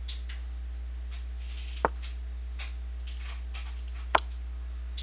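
Two short, sharp wooden-sounding clicks about two seconds apart, the online chess board's piece-move sound as moves are made, over a steady low electrical hum.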